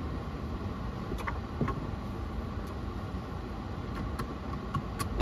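Road and engine noise inside a moving car's cabin: a steady low rumble with a few faint ticks.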